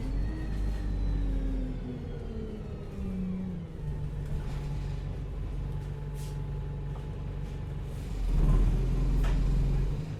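Bus engine running, its pitch falling over the first few seconds, then settling into a steady idle. A louder low rumble swells near the end.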